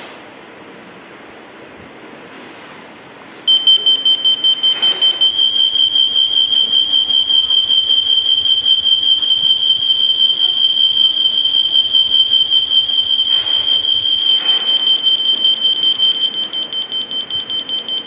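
Anka wireless interlinked smoke alarm sounding its piezo alarm: a loud, high, rapidly pulsing tone that starts abruptly about three and a half seconds in and stops at the end.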